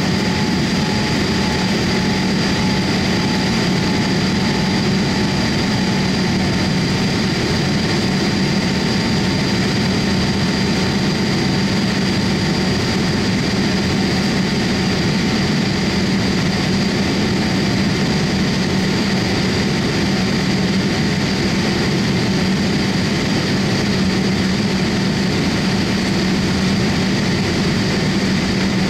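Cabin noise of a Boeing 787-8 with Rolls-Royce Trent 1000 turbofans in the climb after takeoff: a steady, loud rush of engine and airflow noise with a constant low hum and a thin high whine over it.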